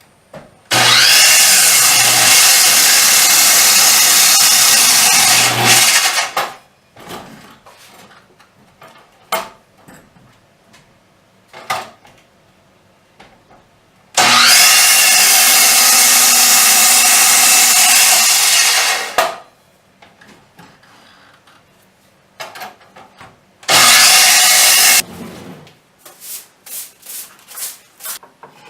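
An electric power tool working wood in three runs, about five, five and one seconds long, each starting with a rising motor whine. Scattered knocks and clatter of wood being handled fall between the runs.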